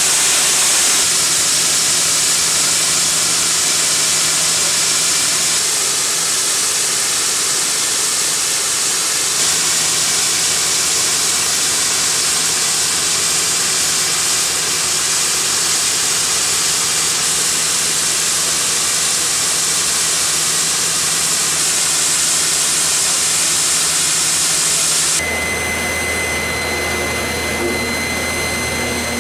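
Hammelmann DockBoy ultra-high-pressure water-blasting head stripping a ship's hull: a loud, steady hiss of water jets. Near the end it changes abruptly to a machine hum with a steady high whine.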